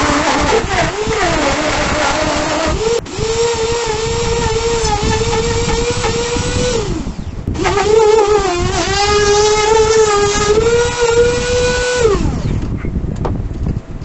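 Makita compact trim router running with a high motor whine that sags and wavers in pitch as the bit cuts into the wooden disc. Its pitch drops and it briefly stops about seven seconds in, then spins up again, and near the end it is switched off and winds down.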